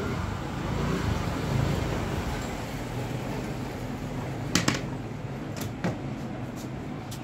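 Steady background noise, like distant road traffic. About four and a half seconds in, a quick pair of sharp clicks, then two more single clicks, as tools and hands handle the metal amplifier chassis.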